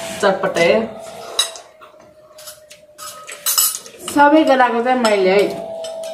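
Spoons and forks clinking and scraping against small ceramic bowls as people eat noodles, with a voice heard briefly at the start and again about four seconds in.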